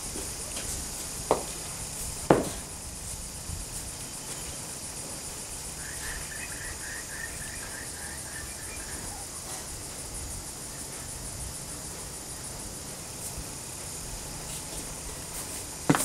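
Steady high-pitched chirring of insects. A few short knocks sound about a second and two seconds in, and again at the end, and a faint trill comes about six seconds in.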